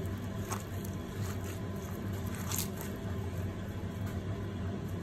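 A bare hand squishing and mixing a soft butter, herb and spice marinade paste in a bowl, with wet squelches and a few light clicks over a steady low hum.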